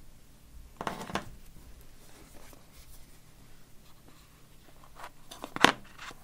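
Hands handling an iPhone box and its contents: a brief rustle about a second in, faint scraping, then a sharp tap or click near the end, the loudest sound.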